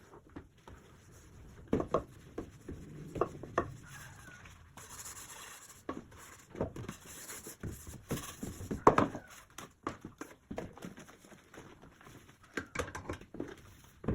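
Kitchen work: scattered knocks and clatter of utensils and cookware being handled, with a brief hiss about five seconds in.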